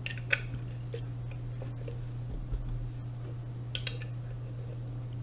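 Small plastic control knobs being pushed back onto a Blue Yeti microphone: a few light clicks, one shortly after the start and a pair near four seconds in, over a steady low hum.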